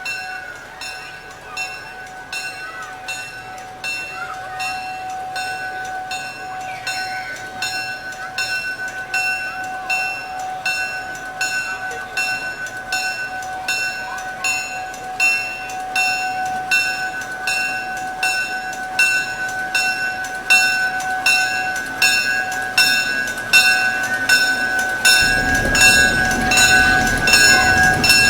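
A train approaching, with a bell ringing evenly about twice a second over a steady hum, both growing louder. The train's low rumble comes in loudly near the end.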